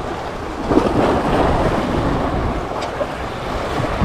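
Sea waves washing in, swelling about a second in and easing off, with wind buffeting the microphone.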